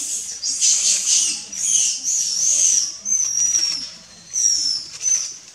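A series of loud, high-pitched animal calls, about seven or eight in all. The first few are harsh squeals, and the later ones are thin whistling calls that drop in pitch at their ends.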